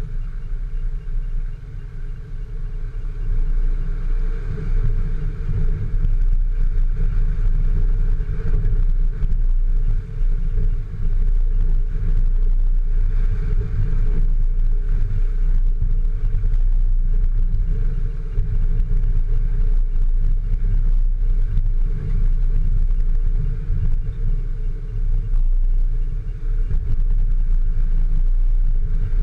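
Off-road 4x4 vehicle's engine running steadily with a heavy low rumble, getting louder about three seconds in.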